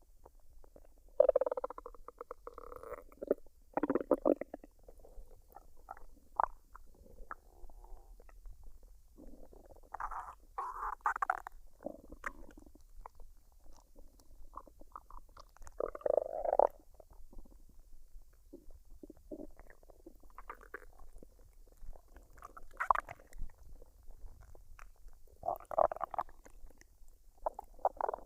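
A woman's stomach gurgling and rumbling as it digests a recent meal: irregular gurgles of varying length, several louder ones scattered among quieter stretches.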